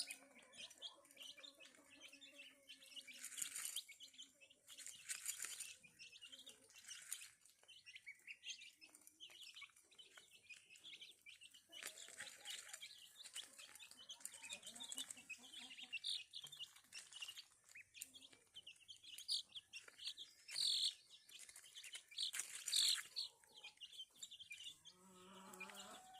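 Chicks peeping in many short, high chirps throughout, with a few soft low calls in the first few seconds and several brief rustles.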